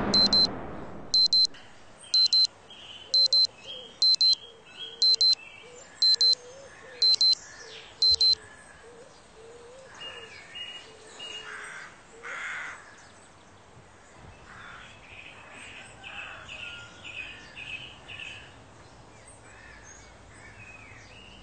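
Alarm clock beeping in short bursts of high, rapid beeps about once a second, stopping about eight seconds in. Birds chirp softly throughout, as in the early morning.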